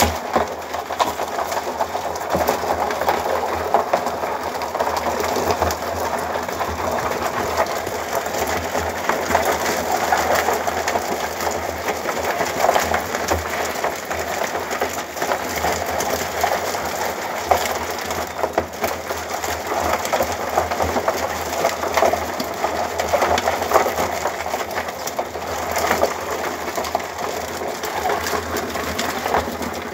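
Live crabs scrabbling and clicking against one another and the sides of a plastic bucket, with rustling as they are bound with plastic string; a steady jumble of small clicks and scrapes.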